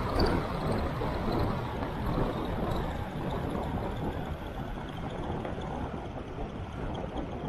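Wind rushing over an action camera's microphone, with tyre noise on asphalt, as a bicycle coasts fast downhill; the rush eases gradually.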